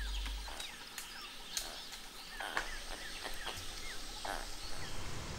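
Forest ambience with a series of short, high chirping calls, several sliding down in pitch, and a few sharp clicks.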